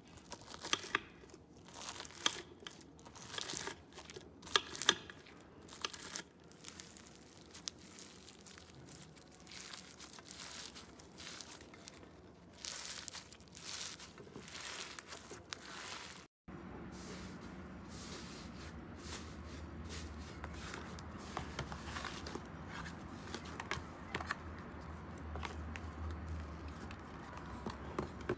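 Slime being squeezed and stretched by hand, giving irregular crinkly crackling and tearing sounds. About 16 seconds in it cuts to a second slime with softer clicks over a low hum.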